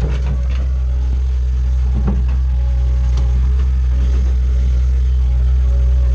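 Bobcat skid steer's engine running steadily while it works dirt, with a few light knocks over the top.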